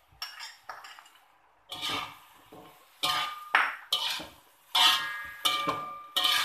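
A metal fork scraping and clanking against a metal wok while tofu and vegetables are stir-fried: a few faint clinks, then from about two seconds in a quick run of sharp scraping strokes, some with a short metallic ring.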